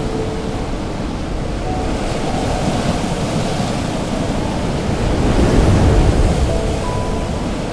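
Ocean surf rushing and breaking, a steady heavy wash that swells loudest about five to six seconds in, with a few faint held music notes underneath.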